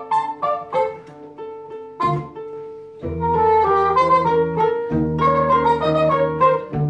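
Small band of zither, hurdy-gurdy, trumpet and electric guitar playing a waltz. Short plucked notes lead at first; about three seconds in, a steady low drone enters under the melody, breaking off briefly near the five-second mark.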